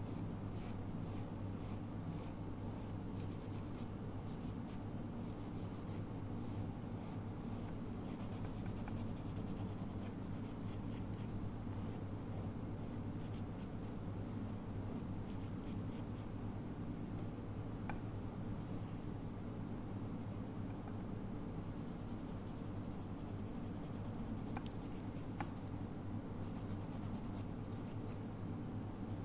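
Hand-held nail file rasping across a fingernail in quick back-and-forth strokes, with a steady low hum underneath.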